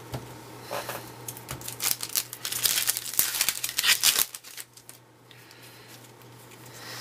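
A baseball card pack's wrapper being torn open and crinkled. A dense run of crackling lasts about three seconds and stops suddenly, followed by quieter handling.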